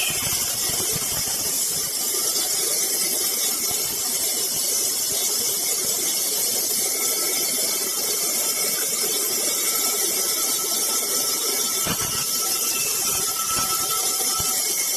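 Woodworking machine running steadily with a high whine over a constant hiss.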